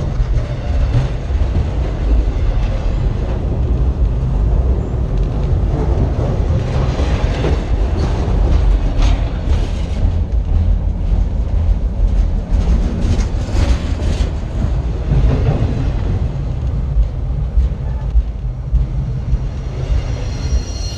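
Freight cars of a Norfolk Southern train rolling directly over a camera set between the rails: a heavy, continuous low rumble with irregular clanks and rattles from the wheels and trucks passing overhead.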